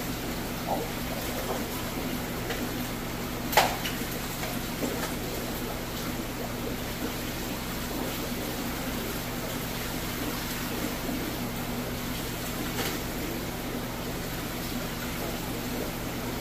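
Steady hum of aquarium pumps and filters with water noise, as plastic fish bags are opened and handled over a bucket; a sharp knock about three and a half seconds in is the loudest sound.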